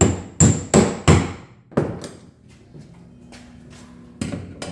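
A hammer striking the wooden boat hull five hard blows in quick succession, the first few with a short high ring, then a few lighter knocks near the end. This is a stage in fitting new ribs into the hull.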